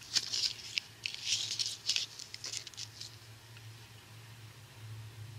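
Thin clear plastic coin sleeve crinkling and rustling in the fingers as the coin inside is turned over, in short scratchy bursts over the first three seconds, then fading to a faint steady low hum.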